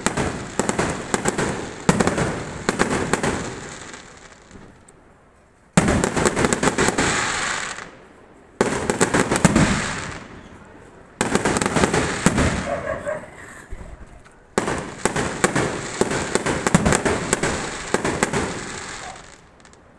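Fireworks crackling in volleys of rapid pops. Each volley starts suddenly and dies away over a few seconds, and a new one begins five times.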